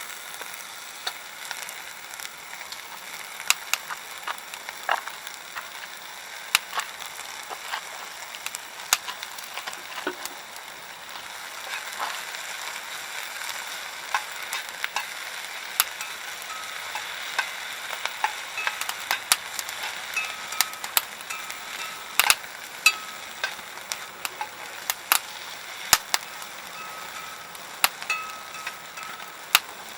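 Food sizzling in a pan over a softwood (conifer) wood fire, with the burning wood crackling and giving dozens of sharp, irregular pops. A faint thin whistle comes and goes in the second half.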